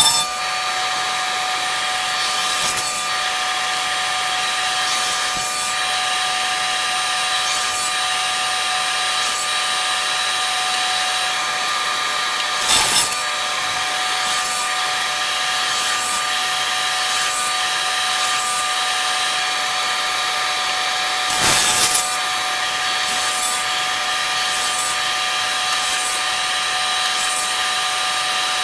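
Table saw with a stacked dado blade running steadily with a constant whine, biting into a turned canary wood and bloodwood hollow form in short irregular cuts as the piece is rotated on a jig. There is a loud burst right at the start and heavier cuts about 13 and 21 seconds in.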